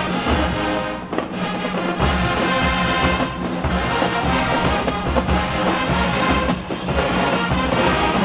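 HBCU-style marching band playing loudly: brass (trombones, trumpets, sousaphones) over marching drums, with a heavy bass line; the sound dips briefly about a second in and again near the end.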